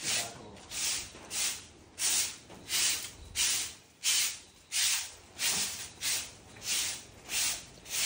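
Rhythmic scraping strokes, about three every two seconds, each a short rasping swish.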